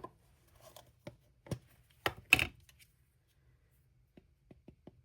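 A rubber stamp and ink pad handled on a tabletop: a few clacks and knocks, the loudest about two seconds in, then light quick taps, about four a second, as the stamp is tapped onto a Memento ink pad.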